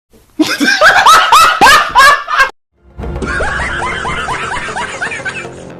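Laughter sound effects edited into the video: a loud burst of repeated 'ha-ha' laughing, a sudden cut to silence, then a second, quieter laugh over background music.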